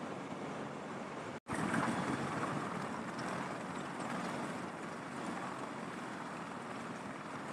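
CH-53E Super Stallion helicopter running on the ground with its three turboshaft engines and rotors turning during hot refuelling: a steady, dense roar. It drops out for an instant about a second and a half in, then carries on slightly louder.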